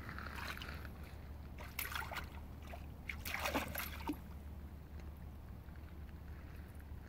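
A dog wading in a shallow creek, splashing water with its paws: two short bursts of splashing, about two seconds in and again around three and a half seconds in.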